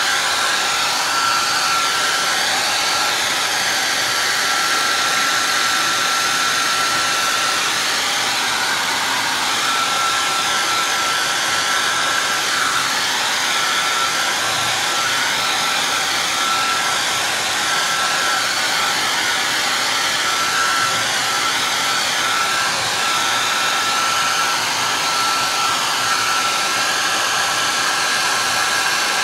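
Small handheld hair dryer running steadily, drying wet paint. A steady rush of air carries a thin, constant whine, and its tone wavers slightly as the dryer is moved over the surface.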